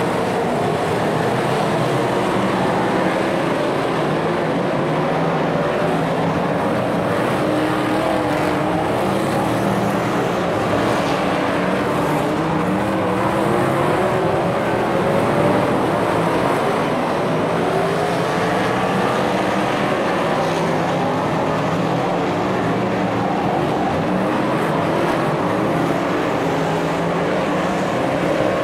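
Several superstock race cars' engines running together on a dirt oval, their pitches rising and falling as they accelerate and back off through the laps.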